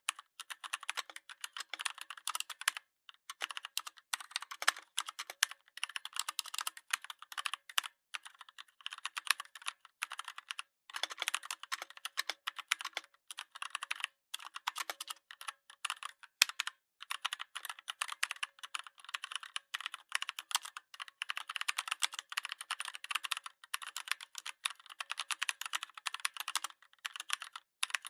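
A rapid, dense run of small sharp clicks and taps, broken by a few brief pauses.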